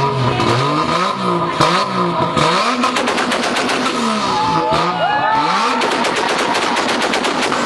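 Toyota Supra engine blipped through several quick revs, then a rapid run of exhaust pops and crackles for about three seconds, the popping that comes with the exhaust spitting fire. Engine noise carries on after it.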